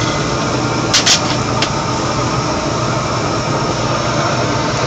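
Welding machine running steadily between stick-welding passes with no arc struck, a constant hum. A few short clicks come about a second in.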